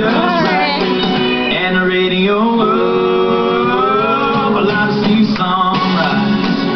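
Country song with acoustic guitar and a male voice singing, holding one long note through the middle.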